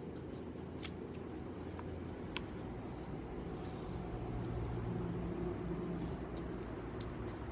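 Faint scattered plastic clicks and handling noise as foam darts are loaded into a toy Nerf blaster, over a low steady background hum.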